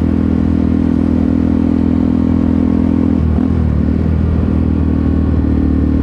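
Yamaha R15 V3's single-cylinder engine running steadily at cruising speed, heard from inside the rider's helmet through a clip-on mic with a furry windscreen. About three seconds in the engine note dips and wavers briefly, then steadies again a second or so later.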